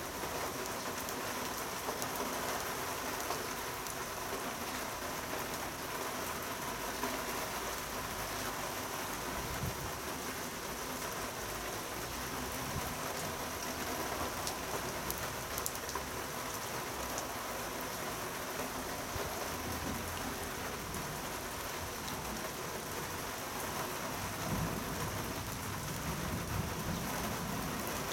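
Rain from a sudden summer downpour falling steadily onto a garden pond's water surface, a continuous even patter of drops on water.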